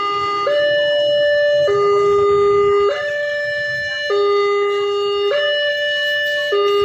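Railroad level-crossing warning siren sounding a steady two-tone alarm, switching between a higher and a lower tone about every 1.2 seconds: the signal that a train is approaching and the crossing barriers are closing.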